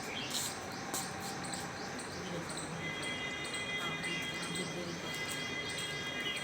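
Insects chirping in a regular high-pitched rhythm, about three chirps a second, with a steady high tone joining about three seconds in.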